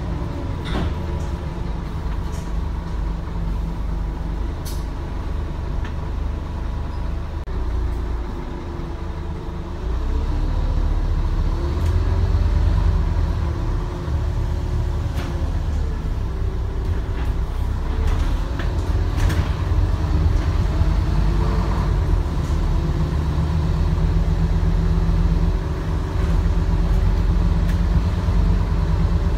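Scania N230UD double-decker bus's five-cylinder diesel engine running under way, heard from inside the bus as a deep rumble. The engine note rises and falls several times and gets louder about a third of the way in, with a few scattered rattles and clicks from the body.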